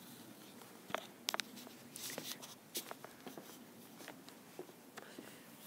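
Irregular light clicks and taps from a phone being handled and carried while walking across a wooden deck, the sharpest about a second in.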